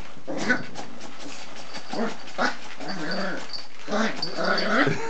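A puppy making small growls and whines as it plays at an old hand bellows, with light knocks and scuffs of paws and the bellows on the floor. The growling is loudest near the end.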